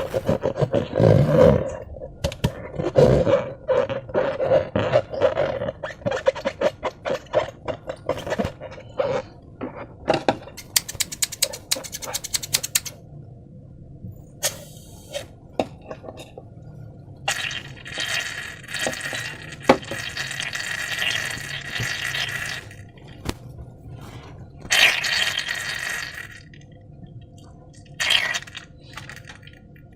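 Slime being handled in and around a rubber balloon: a dense run of wet squelches and clicks, then several stretches of hissing, one lasting a few seconds.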